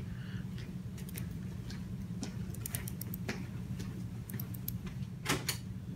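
Light, irregular metallic clicks and ticks from a Nobel dental torque wrench being handled and turned on its driver, over a steady low hum.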